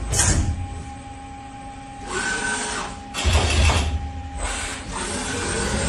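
CNC lathe at work: a steady machine hum under several short bursts of whirring and hissing as the tooling moves, the loudest burst, with a low rumble, a little past the middle.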